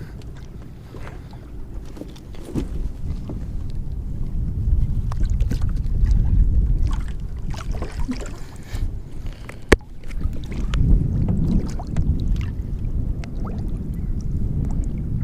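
Wind rumbling on the microphone and small-boat noises on open water, with scattered clicks and knocks of handling and one sharp knock about ten seconds in.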